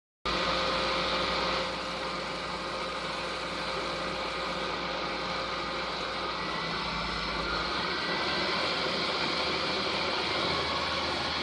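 XYZ ProtoTRAK SMX 3500 CNC milling machine running with a steady mechanical hum and whir. Its low tone changes a little under two seconds in and again near eight seconds.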